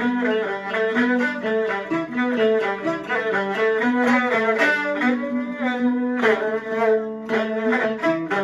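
Peking opera accompaniment playing a melodic passage, a high bowed fiddle such as the jinghu leading over a string section, with several sliding notes in the second half.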